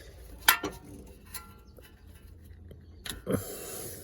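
Metal hand-tool clinks as a 19mm ring spanner is fitted onto a car's coolant temperature sensor: one sharp metallic clink about half a second in, a few lighter ticks, and a short scrape about three seconds in.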